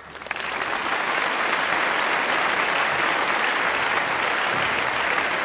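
Large audience applauding, the clapping building up over about the first second and then holding steady.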